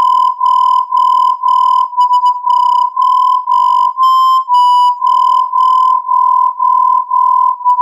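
Synthesised electronic beep tone near 1 kHz, pulsing on and off about twice a second. Near the middle a couple of beeps run longer and shift slightly in pitch before the steady pulsing resumes.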